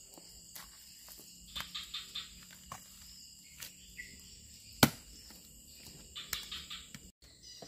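A steady high drone of forest insects, with scattered sharp knocks and clicks from something being handled. One loud knock comes about five seconds in, and the sound drops out for a moment near the end.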